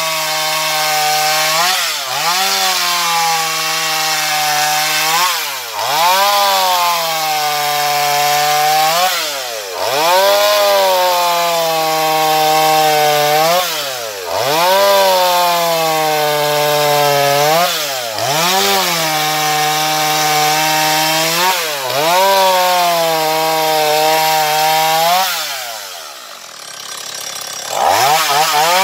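Stihl MS170 chainsaw's small two-stroke engine running at high revs while cutting through a log, the revs dipping and climbing back every few seconds as the throttle is eased between cuts. Near the end it drops to idle for a couple of seconds, then revs up again.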